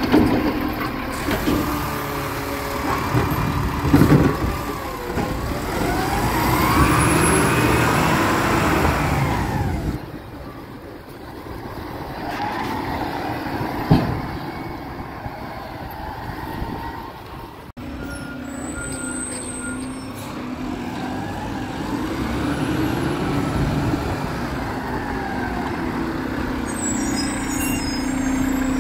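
Garbage truck working: its engine revs up and falls back in long swells, with two sharp bangs in between, and settles to a steady run near the end.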